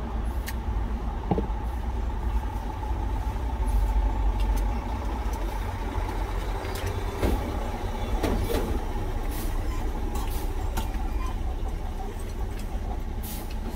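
Steady low rumble of an idling truck engine heard from inside the cab, with a few small clicks over it.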